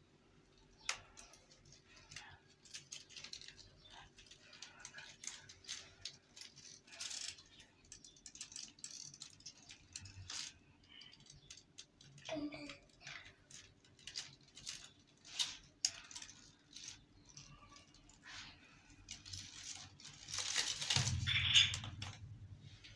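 A kitten scrambling and pouncing through stiff-leaved potted plants: scattered light clicks and dry rustling of leaves, with a louder, longer rustle near the end.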